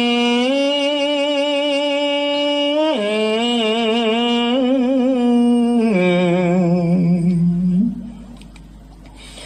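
Khmer smot chanting by a Buddhist monk, one unaccompanied male voice holding long, wavering vowel notes. The pitch steps down about three seconds in and again about six seconds in, and the phrase ends just before eight seconds in.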